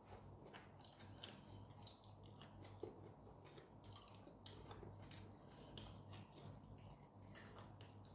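Faint chewing and small scattered clicks of people eating with their fingers.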